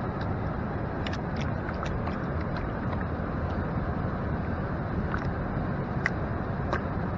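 Steady rush of creek water, with scattered light clicks of gravel knocking in a gold pan being swirled and washed.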